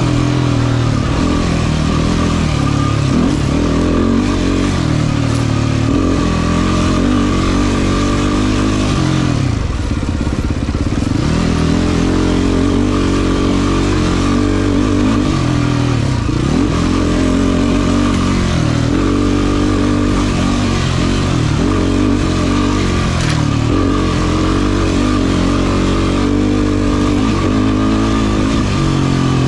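Race quad's engine being ridden hard, the revs climbing and falling with the throttle. The revs drop off sharply about a third of the way in and climb again, with two briefer drops later on.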